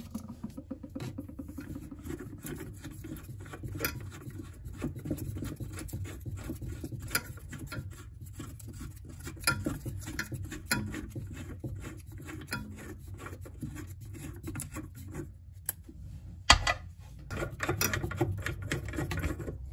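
Plastic securing nut being unscrewed by hand from a bathroom faucet's threaded shank under the sink: a run of small scratching, rubbing clicks, with one sharp knock near the end followed by a denser clatter.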